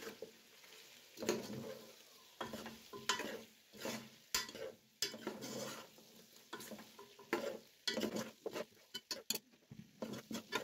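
Metal spoon stirring chicken pieces in a metal cooking pot, clinking and scraping against the pot in irregular strokes, over a faint sizzle of the chicken frying in oil.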